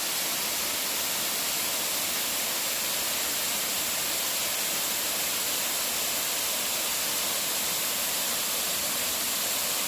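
Steady rushing of a waterfall close by, an even wash of water noise with no change in level.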